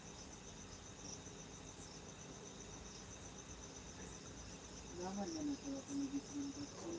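A steady, high-pitched insect trill pulsing rapidly in the background, with a soft voice coming in about five seconds in.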